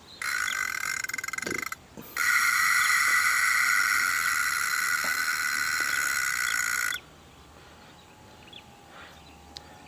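Abu Cardinal 333 spinning reel buzzing as a hooked fish pulls on the bent rod. It gives two steady, high-pitched buzzes, the first about a second and a half long and the second about five seconds, each cutting off abruptly.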